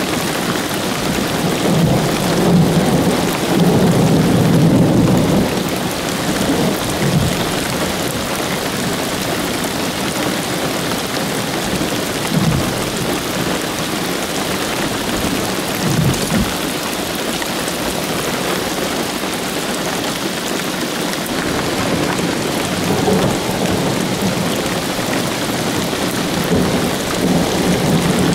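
Steady rain falling, with rolls of thunder rumbling through it. The loudest roll comes about two to five seconds in, and weaker rumbles follow at intervals.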